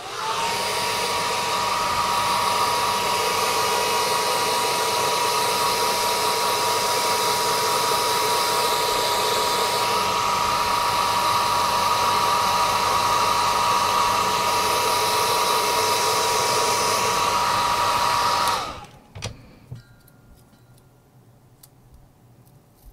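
Hot-air blower running steadily, a rushing blow with a steady whine from its fan motor that rises briefly as it spins up, then cuts off suddenly after about eighteen seconds. It is heating the double-sided tape that holds the camera module to the phone's motherboard, to soften the adhesive.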